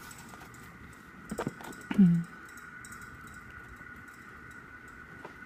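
Small clicks and taps of a photo book being handled as its pages are shown, over a faint steady room hum. About two seconds in comes a brief low voice sound, like a short "mm".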